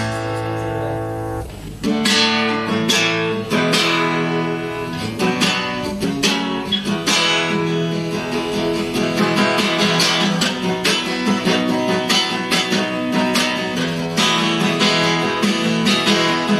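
Acoustic guitar strummed in a steady rhythm. It opens on a chord left ringing for about two seconds before the regular strumming starts.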